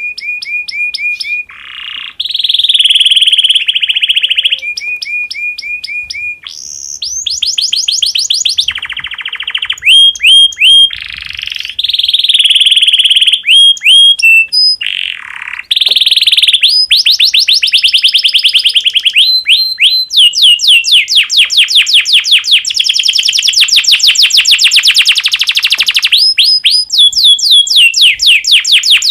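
Domestic canary singing a long, loud song of rapid repeated notes and trills, changing phrase every second or two; the song of a male canary in breeding condition.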